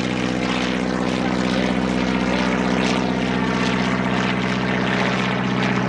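Piston engine of a propeller-driven vintage warbird running at a steady speed, with an even, unchanging drone.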